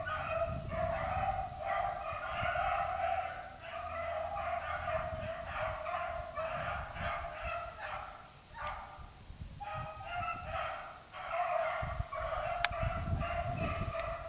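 A pack of beagles baying on a rabbit's track, several voices overlapping in a near-continuous chorus with a short lull a little past halfway: the hounds are running the rabbit by scent.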